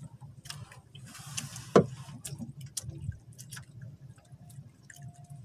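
Scattered small clicks, taps and drips from a wet fishing handline and tackle being handled, with one sharp knock about two seconds in, over a low steady hum.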